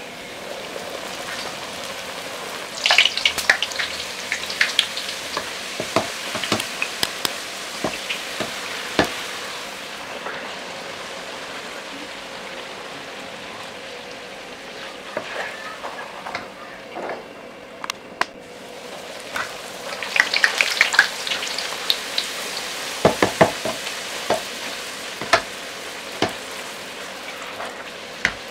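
Chola poori deep-frying in hot oil in a kadai: a steady sizzle, with two spells of loud crackling pops, about three seconds in and again about twenty seconds in.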